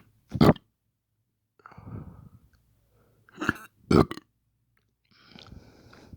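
A person burping on purpose: three loud, short burps, one about half a second in and two close together near the four-second mark, with quieter throat sounds in between.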